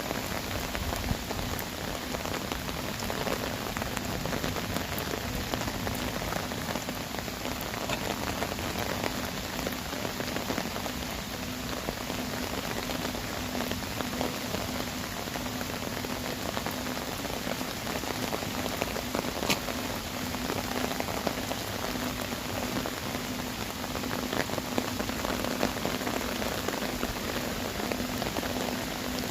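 Heavy rain falling steadily onto earthenware storage crocks (onggi jars on a jangdokdae), with scattered sharper hits of single drops.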